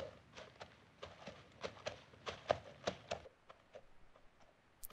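Faint, slow footfalls from the film's soundtrack, a soft tap about three times a second, growing fainter after about three seconds.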